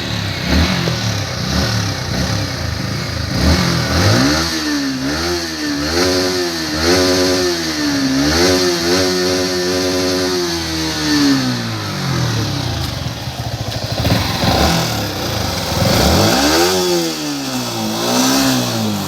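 Yamaha R15 V4's 155 cc single-cylinder four-stroke engine idling, then revved in a series of quick blips, its pitch rising and falling again and again. It drops back toward idle and is revved again near the end.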